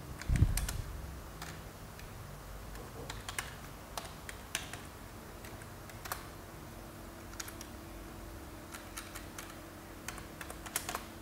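Typing on a computer keyboard: scattered, irregular key clicks as a terminal command is entered.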